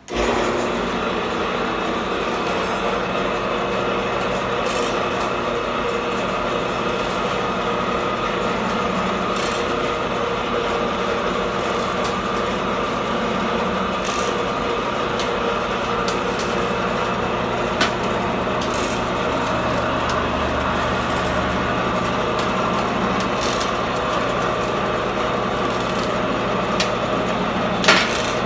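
Electric motor and reduction gearing of a motorized rotary sheet-metal shear running steadily, starting abruptly at the beginning, with a few sharp clicks.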